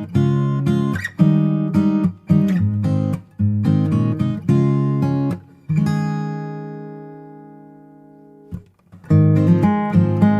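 Background music on acoustic guitar: strummed and plucked chords, one chord left ringing and fading for a couple of seconds past the middle before the strumming starts again.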